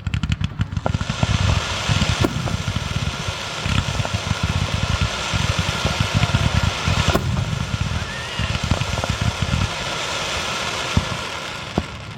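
Fireworks finale barrage: shell bursts coming so fast they merge into a continuous rumble, with crackling and sharp pops throughout, easing off near the end.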